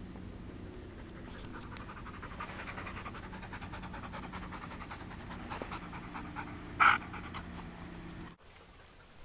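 Wirehaired Pointing Griffon panting rapidly close by, with one short, louder noise about seven seconds in. The sound cuts off suddenly near the end.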